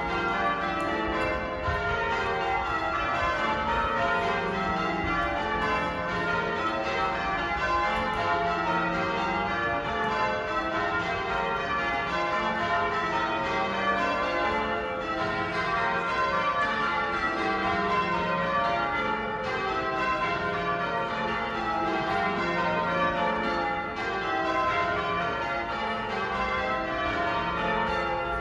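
Cathedral church bells in change ringing: a continuous run of bell strikes, rows of notes stepping down the scale over and over, the rings overlapping.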